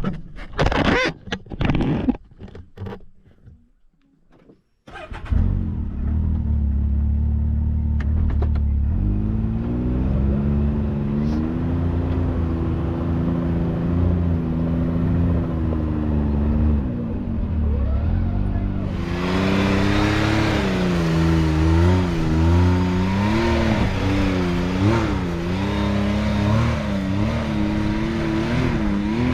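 Can-Am X3 side-by-side engine running under load up a steep climb, its pitch rising and falling as the throttle is worked. A few knocks and clatters come first, the engine comes in about five seconds in, and a loud rushing hiss joins about two-thirds of the way through.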